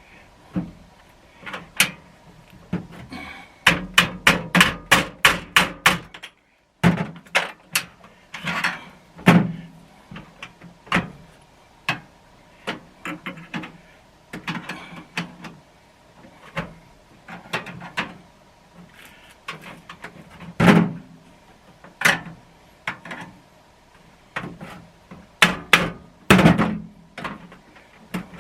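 Repeated sharp knocks and taps of hand-tool work on a metal tool box, with a quick run of hammer-like blows, about three or four a second, a few seconds in. The sound briefly cuts out, then irregular knocks go on.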